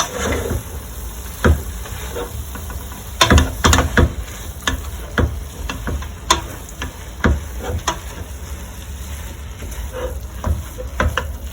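Spoon stirring spinach stew (efo riro) in a cooking pot on a low flame, with irregular clinks and scrapes of the spoon against the pot.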